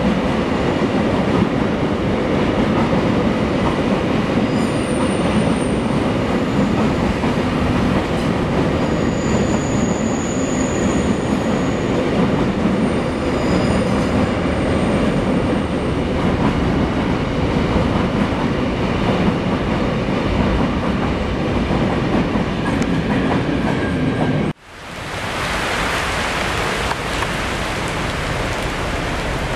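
Container freight train rolling past at speed, its wagons and wheels making a steady rumble, with brief high-pitched wheel squeals about 5 seconds in and again between about 9 and 15 seconds. About 25 seconds in, the sound cuts off abruptly and gives way to the steady hiss of heavy rain.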